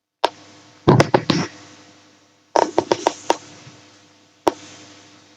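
A series of sharp knocks and taps, with a faint steady hum underneath: a single knock, then two quick clusters of about four each, then one more near the end, each ringing briefly.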